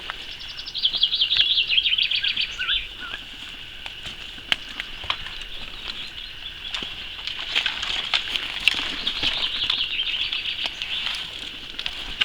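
Songbirds singing: fast trills of high repeated notes, one falling in pitch early on and another about eight seconds in, over a steady high chorus, with scattered sharp clicks.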